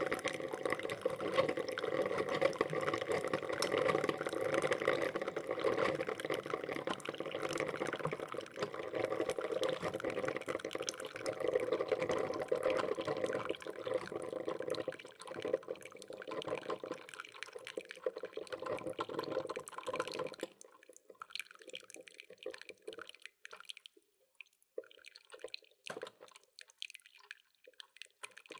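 Filter coffee maker brewing, with steady gurgling, bubbling and dripping of water. About 20 seconds in the dense gurgling stops and only scattered drips and sputters remain.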